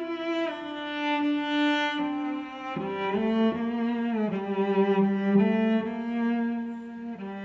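Background music of slow bowed strings, long held notes that change pitch every second or so.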